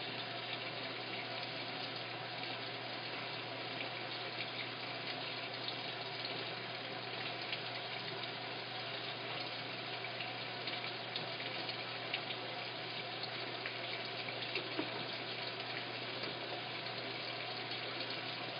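Washing machine filling: water running steadily into the drum, with a constant low hum underneath.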